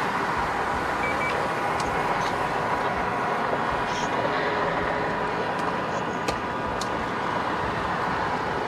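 Steady rush of freeway traffic, with cars driving past close by.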